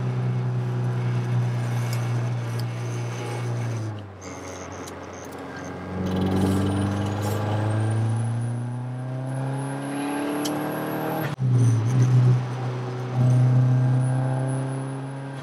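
The built turbocharged four-cylinder of a big-turbo Mazdaspeed6, heard from inside the cabin, pulling through the gears at part throttle, kept out of heavy boost. It eases off for a shift about four seconds in, then climbs steadily in pitch with a faint high whine rising with it. It cuts off abruptly for another shift around eleven seconds and pulls again.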